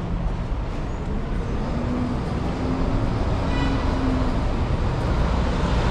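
City street traffic: a steady low rumble of passing vehicles, getting a little louder after about three seconds, with a faint hum for a couple of seconds in the middle.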